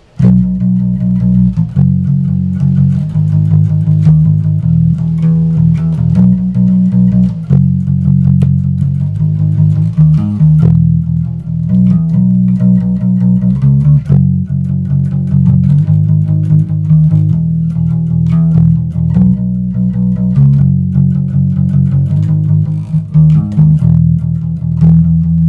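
Squier Affinity Precision Bass played with a pick, tone knob rolled fully off: a continuous run of picked notes with a deep, muffled sound, the treble cut away.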